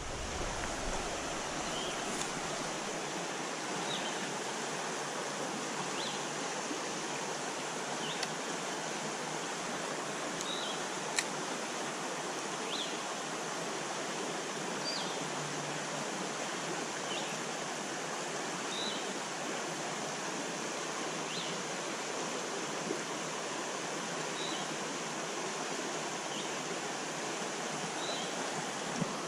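Creek water running over a shallow riffle in a steady rush, with faint, short, high chirps about every two seconds and a single click about eleven seconds in.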